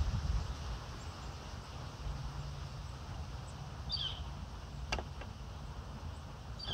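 Outdoor park ambience: low wind rumble on the microphone with a steady low hum, and a bird chirping briefly about four seconds in and again at the end. A single sharp click sounds about five seconds in.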